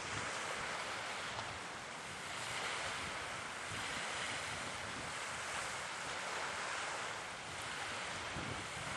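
Steady rushing of wind and sea surf, with wind buffeting the microphone, rising and falling slowly.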